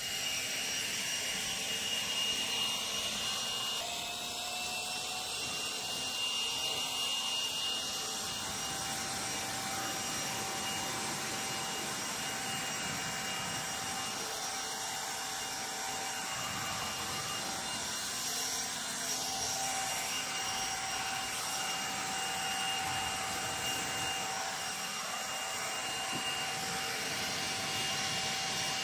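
DeWalt 60V FlexVolt brushless handheld blower running steadily: a rush of air with a steady fan whine on top, its pitch stepping up slightly about four seconds in.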